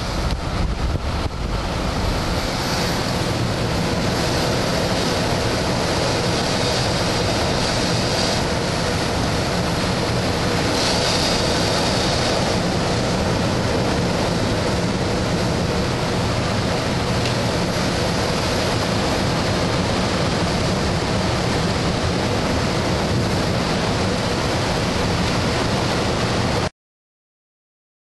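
Steady rush of airflow past a glider's canopy and through the cockpit in flight, with no engine. It cuts off abruptly near the end.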